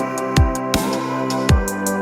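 Background music: an electronic track with held chords, a steady kick drum and crisp hi-hat ticks.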